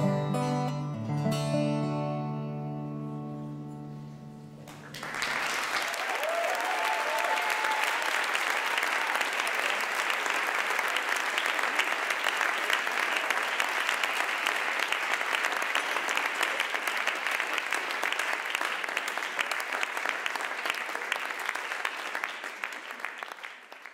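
Final chord of a resonator guitar and a second plucked string instrument ringing out and fading. About five seconds in, audience applause starts and holds steady, then dies away at the very end.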